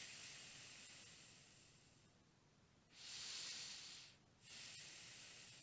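A person breathing slowly and audibly in and out, demonstrating abdominal (diaphragmatic) breathing. The breaths are faint, soft hissing swells: one fading out over the first couple of seconds, then after a short pause another breath in and out.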